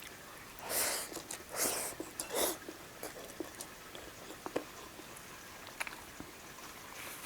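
Close-miked eating sounds: three short noisy bursts in the first two and a half seconds, then soft chewing with scattered light clicks.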